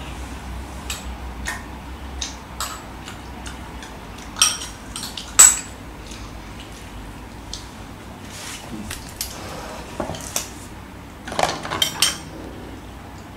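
Metal spoon clinking and scraping against a porcelain rice bowl while eating: scattered sharp clicks, the loudest two about four and a half and five and a half seconds in, and a quick run of them near the end.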